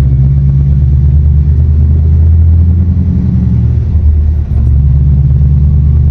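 Diesel engine of a fully loaded Scania off-highway logging truck pulling under heavy load, a steady low drone heard from inside the cab. It briefly dips about four and a half seconds in, then picks up again.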